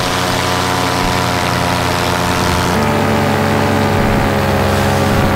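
Paramotor's Vittorazi Moster 185 two-stroke engine and propeller running steadily in flight, the engine note stepping up a little about three seconds in as power is added to climb.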